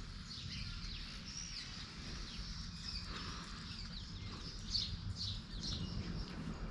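Small birds chirping here and there, short high chirps heard faintly over a steady low rumble.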